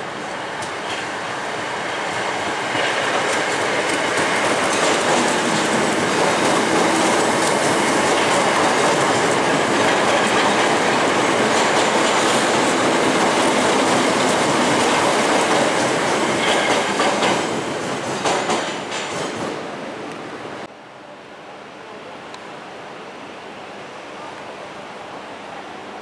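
A British Rail Class 319 electric multiple unit passes close by on curved track, loud for about fifteen seconds with wheel clatter over the rails, then fading. About twenty seconds in the sound drops abruptly to a quieter, steady background rumble.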